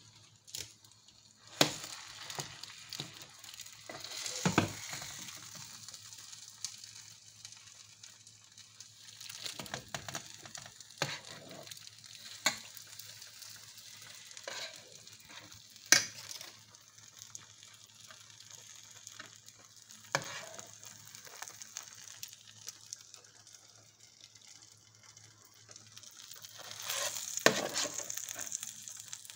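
Hot shepherd's pie sizzling faintly in its baking dish while a metal spoon scrapes and clinks against the dish, several sharp strokes scattered through, with a cluster of scraping near the end.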